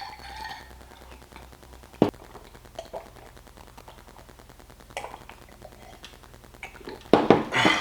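A metal spoon knocking and clinking against a cereal bowl: a few sharp, separate clicks, then a louder clatter near the end.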